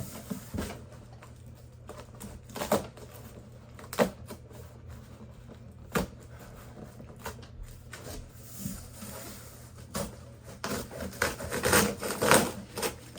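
Cardboard box and packaging of a subwoofer being handled: scattered single knocks and bumps, then a busier run of handling noise near the end.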